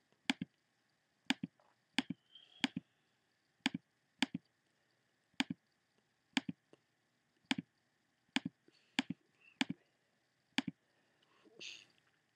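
Computer mouse clicking at irregular intervals, roughly once a second, many clicks coming as quick press-and-release pairs.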